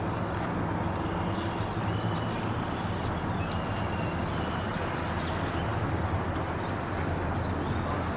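Steady outdoor rumble with a dense low hum, and short high chirps now and then.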